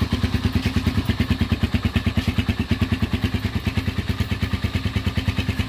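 Motorstar Z200x single-cylinder motorcycle engine idling steadily, its exhaust pulsing evenly about ten times a second.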